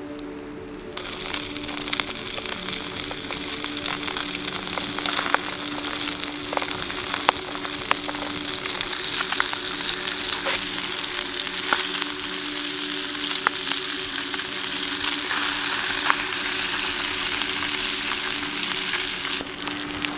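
Trout fillet frying in oil, butter and garlic in a pan: a steady sizzle with scattered pops, starting about a second in.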